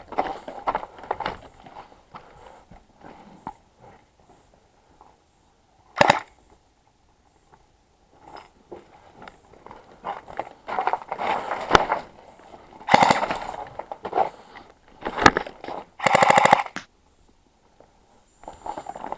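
Airsoft guns firing: scattered shots and short bursts, loudest a sharp crack about six seconds in and a buzzing full-auto burst of about a second near the end, among rustling and knocks.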